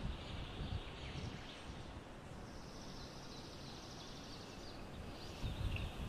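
Outdoor ambience at a bald eagle nest: a steady hiss with low wind rumble on the microphone, small birds chirping in the background, and a high, fast trill from about two and a half to four and a half seconds in.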